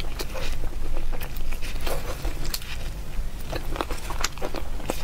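Close-miked eating: chewing and biting food, with many irregular sharp clicks.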